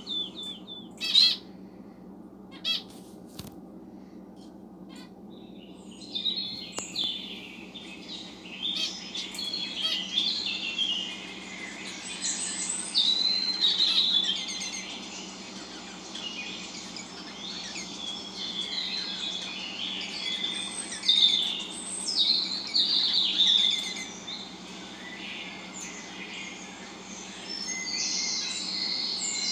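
Small birds chirping, with pet birds and recorded bird sounds played back mixed together. A couple of sharp clicks come in the first few seconds, then a dense stream of high chirps starts about six seconds in and keeps going.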